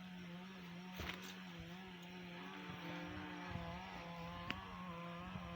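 A faint engine running steadily, its pitch wavering slightly, with a couple of light clicks.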